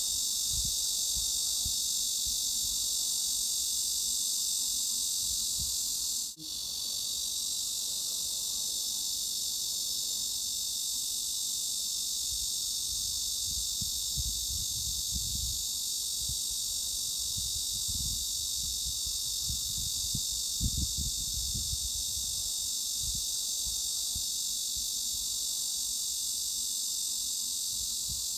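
Steady high-pitched cicada drone with no pulsing or breaks in its rhythm. It cuts out for a moment about six seconds in, over a faint, uneven low rumble.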